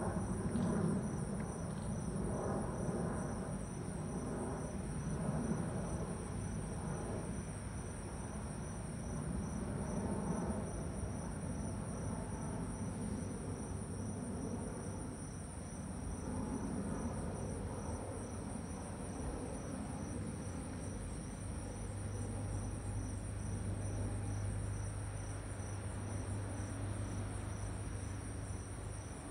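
Jet engines of a Boeing 767-300F freighter rumbling as it passes overhead on approach, strongest at first and then fading as it moves away, over the steady high-pitched chirring of crickets. A steady low hum comes in about two-thirds of the way through.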